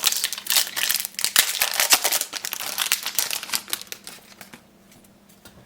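A trading-card booster pack's wrapper being torn open and crinkled in the hands, a dense crackling rustle that dies down after about three and a half seconds.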